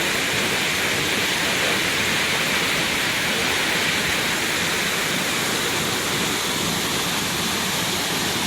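Midubanda waterfall in monsoon flow: water pouring and splashing with a steady, unbroken rushing noise.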